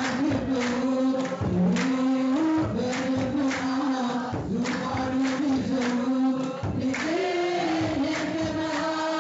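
A congregation chanting an Ethiopian Orthodox hymn together in unison, the melody moving in held steps, over a steady beat of about two strikes a second.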